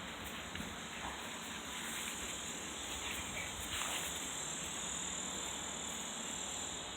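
Steady high-pitched drone of cicadas singing in the summer trees, with a few faint rustles and ticks.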